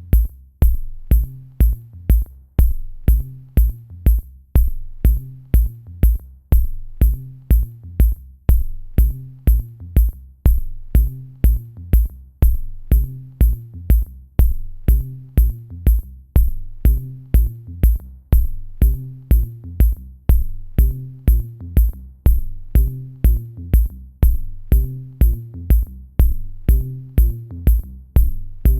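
Electronic music with a steady drum-machine beat: a deep kick about twice a second, a crisp high tick on each beat, and a short repeating low bass figure.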